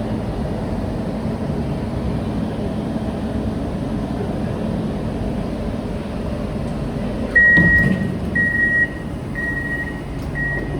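Steady low hum inside a Hyundai Rotem MRT train standing at a station. About seven seconds in, the door-closing warning starts: four high, steady beeps about a second apart, the first with a sudden knock.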